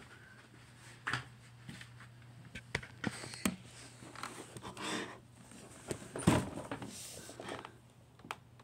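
Handling noise as a phone camera is moved about and set down: scattered knocks, taps and rustles, the loudest knock about six seconds in, over a faint low steady hum.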